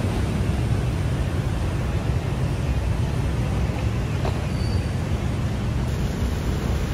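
Steady city street traffic: motorbikes and cars running past in a continuous low rumble.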